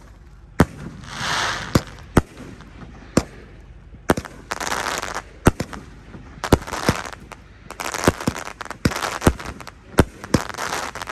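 Aerial firework shells launching and bursting in quick succession: a string of sharp bangs, with stretches of crackling hiss from the breaks between them.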